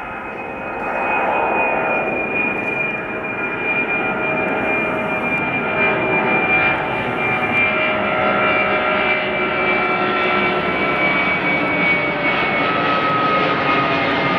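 Airbus A310 freighter's twin turbofan engines at takeoff thrust as it climbs out overhead: a loud jet roar that swells over the first second or two, then holds steady, with whining tones that slowly drop in pitch as the aircraft passes.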